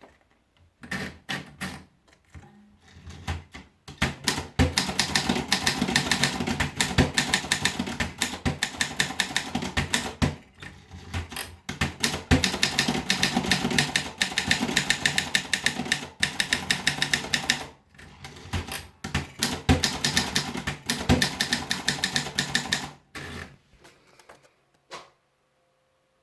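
A Groma Modell T manual typewriter being typed on: a fast run of key strikes with a few short pauses. It begins with scattered strokes and ends about three seconds before the end with a couple of single strikes.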